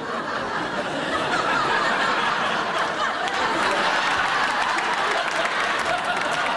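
Studio audience and cast laughing together, the laughter swelling about a second in and staying loud.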